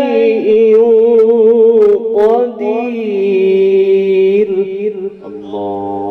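A man reciting the Quran in the melodic tajwid style, amplified through a microphone. He draws the syllables out into long held notes with wavering ornaments and rises to a high sustained note in the middle.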